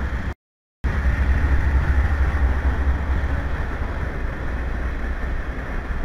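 Diesel-hauled freight train passing close by: a steady deep locomotive engine rumble with wheel and rail noise. The sound cuts out in brief gaps for the first second before coming in fully.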